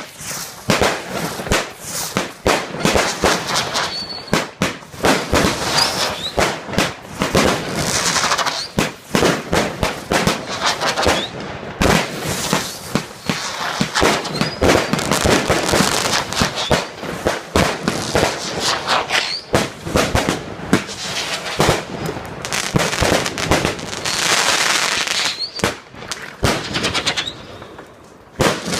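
Fireworks display: a dense, continuous barrage of bangs and crackling, with a few short rising whistles along the way, thinning out briefly near the end.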